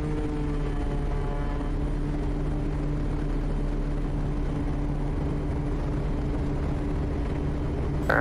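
Quest Kodiak's single turboprop engine and propeller at takeoff power during the takeoff roll: a steady drone whose pitch rises a little at first, then holds.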